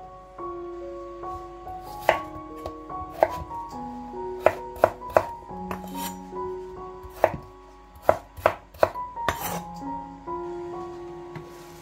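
Chef's knife chopping raw potatoes on a wooden cutting board: a series of sharp, irregular knocks that stop near the end. Soft background music of held notes plays underneath.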